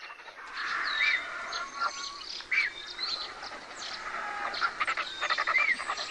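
Birds calling: a busy mix of short chirps and gliding whistled notes that starts about half a second in, with a quick run of chattering notes near the end.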